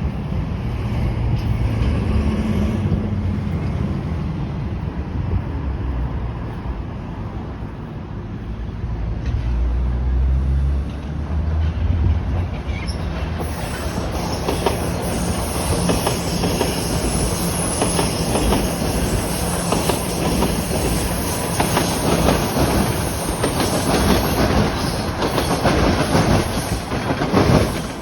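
Toronto Rocket subway train rolling through the rail yard, its wheels clacking over rail joints and switches with some wheel squeal. The clacking grows louder and denser from about halfway in.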